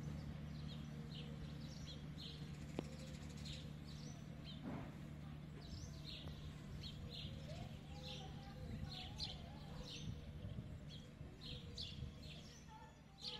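Low, steady drone of a MAN diesel railcar's engine, fading as the train pulls away from the station. Small birds chirp over it again and again.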